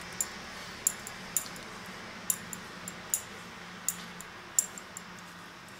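Pastry brush clinking lightly against a ceramic bowl as it is dipped in olive oil and dabbed over pizza dough: about a dozen short, irregular clicks. A steady low hum runs underneath.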